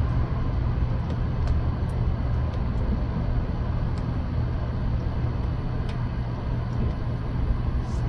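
Steady low rumble with a hum, with a few faint ticks.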